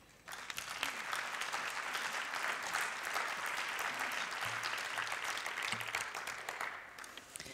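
Audience applauding, starting a moment in and dying away near the end.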